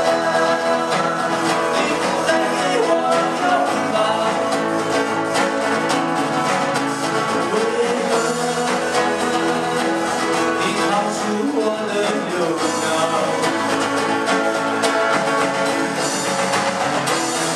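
Music: a band playing a section of a pop-rock song without lyrics, with guitar prominent.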